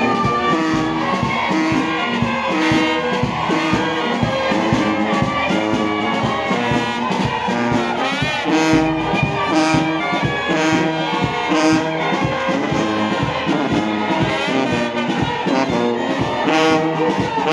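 Brass band playing a tune over a steady drum beat, with brass instruments holding the melody notes.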